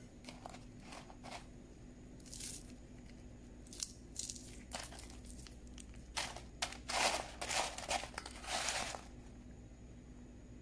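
Dry crunching and crinkling: a few short crackles, then a denser cluster of louder ones from about six to nine seconds in.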